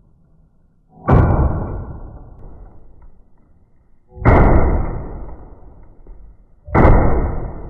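Three shots from a Glock 40 Gen 4 10mm pistol with a 6-inch barrel, about three seconds apart. Each is a heavy boom that dies away slowly.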